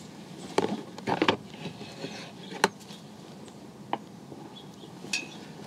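Sharpening gear being handled inside an open ammo can as a whetstone is picked out: a handful of short, scattered knocks and clunks.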